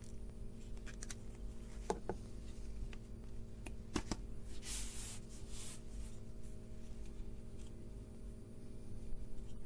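Small clicks and rustles of hands handling electronic components and tools on a workbench, with a few sharp clicks about two and four seconds in and a brief hiss just after, over a steady low hum.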